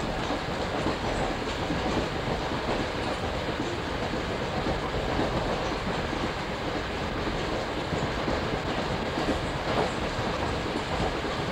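New Jersey Transit commuter train running along the track, heard from inside the passenger car: a steady rumble and rattle of the moving coach and its wheels on the rails.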